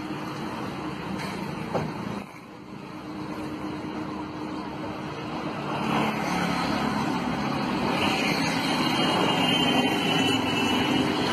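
Street noise with traffic running by; it grows louder about six seconds in.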